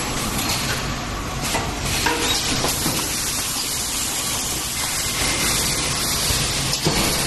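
Corrugated paper baking cup tray forming machine running: a steady hissing noise with a low hum underneath and a few faint knocks.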